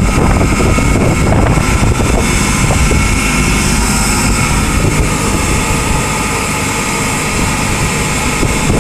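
Steady running of industrial plant machinery: a continuous mechanical noise with a few faint steady whining tones over it.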